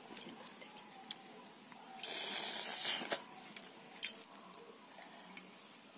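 Quiet eating by hand: faint mouth clicks and smacks of children eating rice and curry, with a hiss lasting about a second around two seconds in and a couple of sharp clicks after it.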